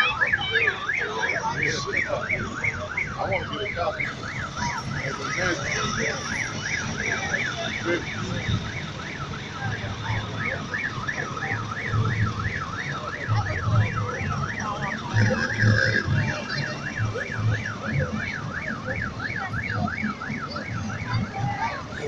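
A fire engine siren sounds in a fast warble, its pitch swinging up and down about five times a second. From about eight seconds in, the low running of a passing farm tractor's engine comes in underneath.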